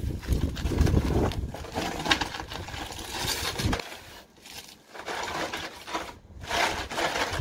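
Flattened cardboard being laid on gravel, then scraping and rustling as a person crawls onto it, with heavy low rumbling through the first four seconds.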